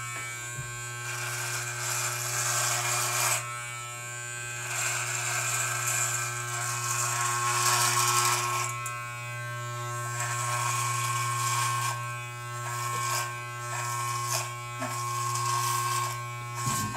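Corded electric hair clipper running steadily as it cuts through a thick beard, a constant buzz under a hiss that swells and fades as the blades pass through the hair.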